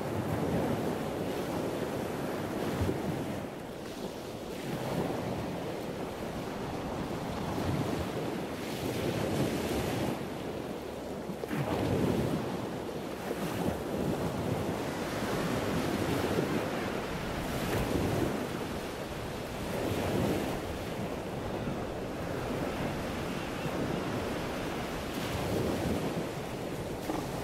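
Southern elephant seal bulls bellowing as they fight, deep guttural roars that swell and fade every second or two, over surf and wind buffeting the microphone.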